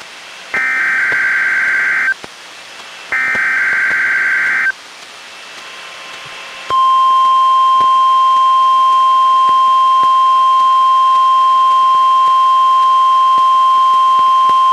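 Two bursts of the NOAA Weather Radio SAME digital header, each a harsh warbling data screech about a second and a half long, played by a Reecom R-1630 weather radio. After a pause of about two seconds, the steady 1050 Hz weather radio alert tone begins and holds.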